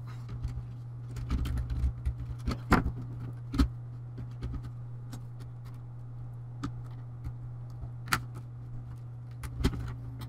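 Scattered plastic clicks and knocks as a laptop's palmrest cover is set onto the base and handled, over a steady low hum.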